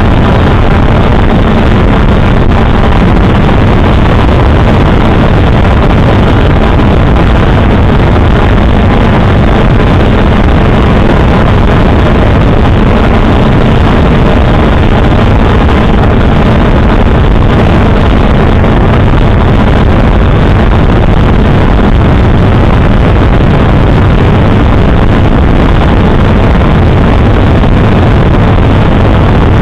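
A drone's motors and propellers running steadily in flight, picked up by the camera on board, with wind noise on the microphone; a loud, unchanging buzz.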